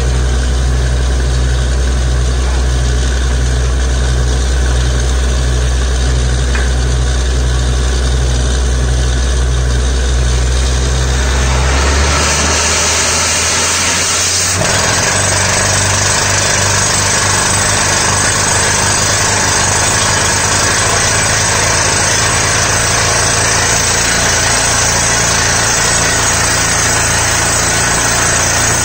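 Borewell drilling rig's engine running steadily with a low pulsing throb. About twelve seconds in, a loud rush of compressed air starts as air is blown down the bore and dust and cuttings blast out of the hole, and it goes on over the engine.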